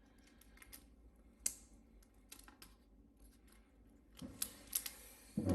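Scattered light clicks and taps from parts and small tools being handled inside an opened Dell Inspiron 5593 laptop as components are disconnected from the system board. There is a sharper click about one and a half seconds in and a few quick clicks near the end.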